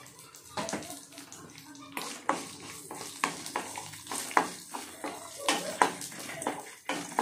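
Irregular clinks and knocks, a dozen or more, over a watery splashing hiss, like household washing-up sounds.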